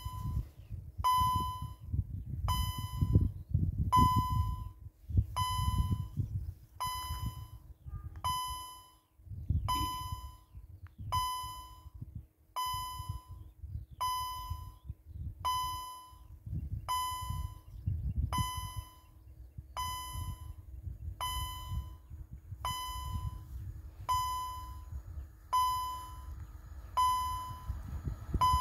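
Level crossing warning bell ringing, one electronic ding about every second and a half, signalling that a train is approaching. A low gusty rumble runs underneath.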